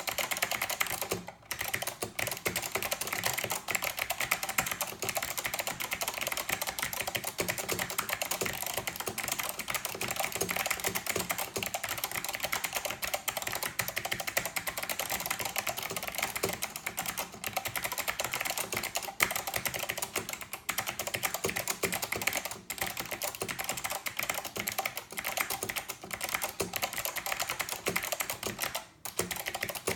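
Fast continuous typing on a Northgate Omnikey 102 mechanical keyboard with clicky Alps SKCM Blue switches, with brief pauses about a second and a half in and near the end.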